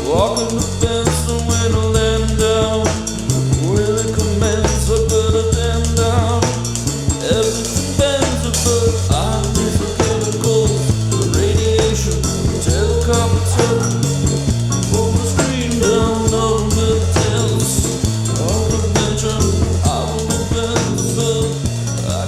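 Background music: a song with a drum kit and bass keeping a steady beat under a melody.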